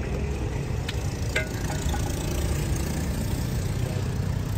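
Steady low rumble of an idling engine in street noise, with two short metallic clinks about a second in, like a steel ladle striking the rim of a steel cooking pot.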